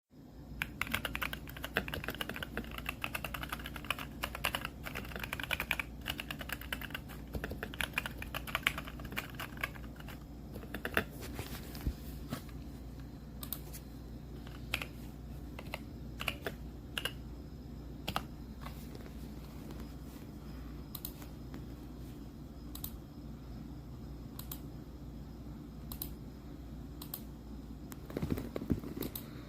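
Typing on a Royal Kludge RK84 mechanical keyboard: fast, dense keystrokes for about the first ten seconds, then slower, scattered key presses with a brief flurry near the end.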